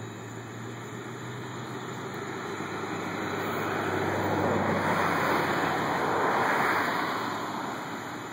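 A car passing by: its tyre and engine noise swells to a peak in the middle and fades away near the end, over a steady low hum that dies out about halfway.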